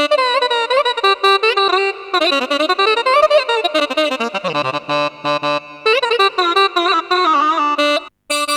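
Korg Krome keyboard playing an ethnic Balkan/Turkish reed-like lead patch, saxophone-like in tone: a fast ornamented melody full of pitch bends and slides. It breaks off briefly near the end before another sound starts.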